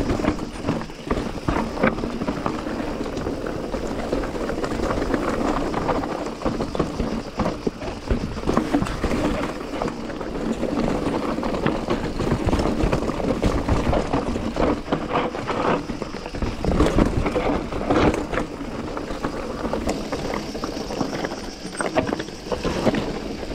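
Mountain bike ridden down a rough trail: a constant rush of tyre and wind noise with frequent rattling knocks from the bike as it goes over bumps.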